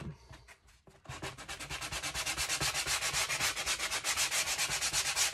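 Sanding block with coarse-grit sandpaper rubbed in quick, even back-and-forth strokes along a painted wooden dollhouse wall slat, starting about a second in. The first coat of paint is being sanded nearly off to knock down the wood grain it raised.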